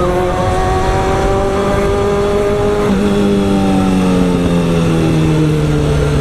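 Motorcycle engine running under way, with wind rush. Its pitch changes about halfway through, then slowly falls as the revs come down.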